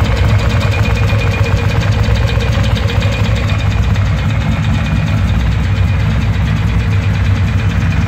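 1994 Ducati Monster 600's air-cooled L-twin engine idling steadily with a mechanical knock, which the owner suspects may be piston slap, the classic piston problem of early Monsters.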